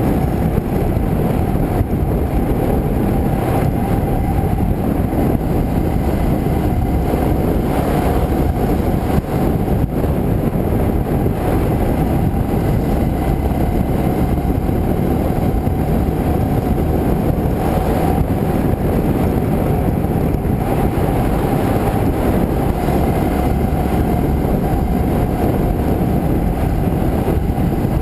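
Motorcycle riding at steady road speed, heard from a camera mounted on the bike: a continuous mix of engine, tyre and wind noise with a faint steady whine underneath.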